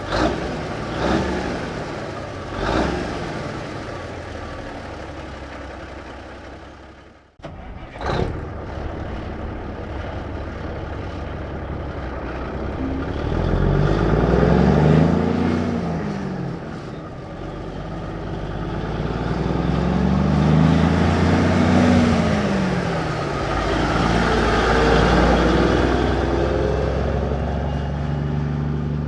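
1954 big rig truck engine heard from outside: a sharp burst as it starts about eight seconds in, a short idle, then the engine revving up and easing off three times as the truck pulls away. Before that, the tail of another run of the same truck, with a few sharp sounds near the start, fades out to a brief silence.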